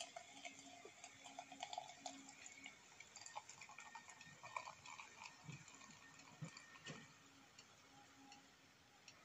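Faint, slow pour of beer from a can into a glass, with scattered small ticks and crackles.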